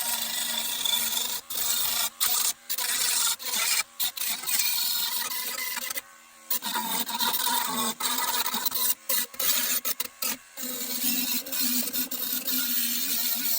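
Power tool grinding on the steel door of a 1963 VW Beetle, working in short runs broken by brief stops, with a longer pause about six seconds in.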